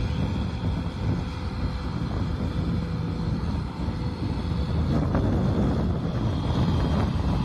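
Kubota M6040SU tractor's diesel engine running steadily under load while it pulls a disc harrow through the mud of a flooded rice paddy.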